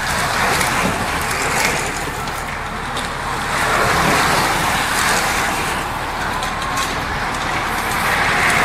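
A bunch of racing road bicycles passing close by, a rushing noise that swells as each group of riders goes past, three times: at the start, about midway and near the end.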